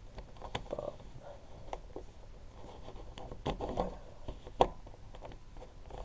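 A Rubik's Cube's plastic layers being turned by hand: a string of short clicks and scrapes, one turn after another at irregular intervals, the loudest a little past halfway.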